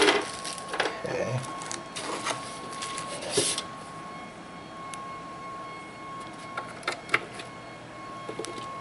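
Packaging being handled: plastic wrap rustling and a hard black plastic base knocking as it is lifted from a cardboard box. The handling has a louder crinkle about three and a half seconds in, then only occasional soft clicks, over a faint steady high hum.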